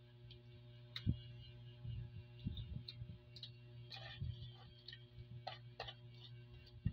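Hands cracking and picking apart cooked crab shells: scattered small cracks and clicks at uneven intervals, with a few soft thuds, over a steady low hum.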